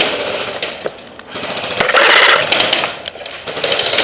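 Airsoft guns firing on full auto: fast, rattling strings of shots, loud near the start, again about two seconds in, and near the end, with quieter moments between.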